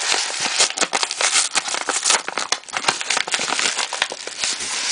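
Yellow padded paper mailer envelope being handled, with close, continuous crinkling and rustling made of many small crackles.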